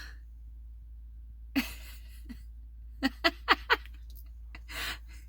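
A woman laughing quietly: a breathy huff, then four quick pitched 'ha' pulses about three seconds in, and a breathy exhale near the end.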